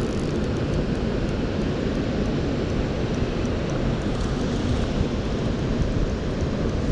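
Steady, even rush of river water on the Arno, with no distinct events.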